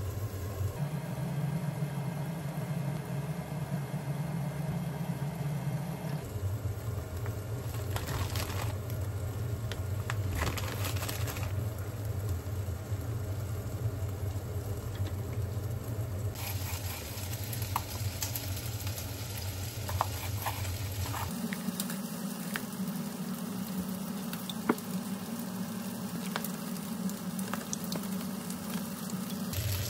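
A pot simmering on an induction cooktop, with a steady low hum and a few light clinks of utensils. The background changes abruptly several times.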